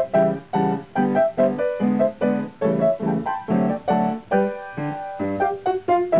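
Background music: a piano or electric-piano tune with a steady beat of chords, about three a second.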